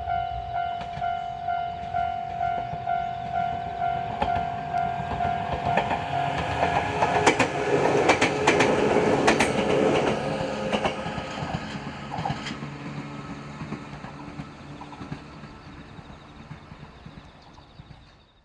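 Japanese level-crossing warning bell ringing about twice a second. A Joshin Electric Railway train passes over the crossing about seven seconds in, its wheels clicking over the rail joints, and its rumble then fades away.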